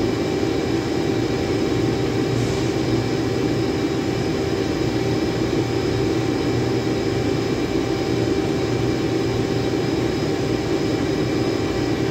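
Steady mechanical drone of running machinery, a low hum with several constant whining tones over it, unchanging throughout.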